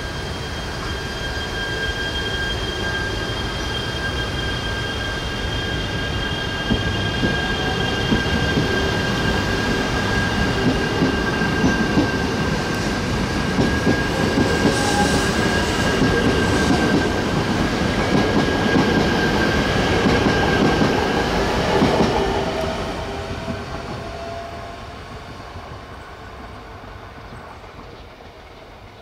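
JR East E3 series Tsubasa mini-shinkansen train running past on the conventional line, with a steady high whine and wheels clicking over rail joints. It grows louder to a peak about 21 seconds in, then fades as the train moves away.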